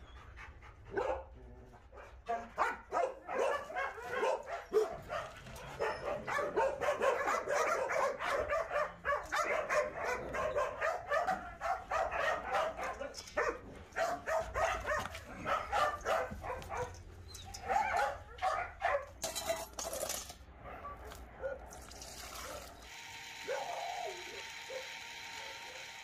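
Many dogs barking and yipping at once in a rapid, overlapping chorus, thinning out about eighteen seconds in. A steady hiss follows near the end.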